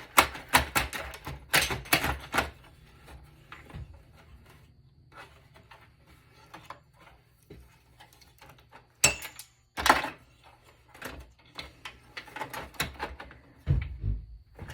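Clicks, clatters and knocks of a Dell desktop PC's case and internal parts being handled and pried apart by hand during disassembly. There is a quick run of clicks at the start, two sharp knocks later on, and a dull thump near the end.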